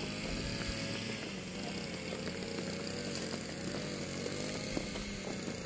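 A drill squad marching in step, boots striking a concrete court, over a steady mechanical drone.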